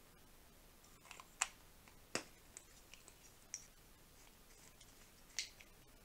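Faint, scattered light clicks and ticks, about seven of them, from handling a desoldering pump (solder sucker) as it is put back together after its clogged solder has been cleared out.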